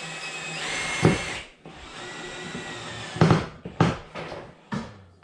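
Power drill boring a rivet hole through corrugated tin roofing, running in two short bursts, followed by several sharp clacks.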